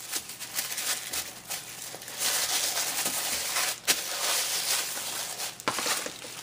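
Paper and cardstock pages of a handmade scrapbook photo folio rustling as they are handled and turned, with two sharp taps, one just before four seconds in and one near the end.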